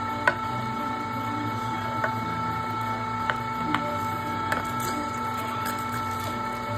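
Electric meat grinder running steadily under load with an even motor whine, pushing ground meat out of its tube into a freezer bag. A few sharp clicks come now and then.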